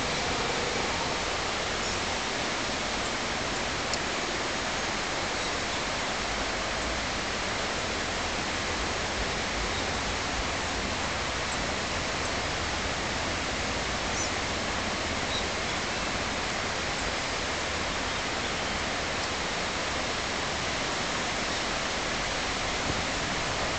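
A steady, even hiss of noise with a few faint ticks, and no bird calls.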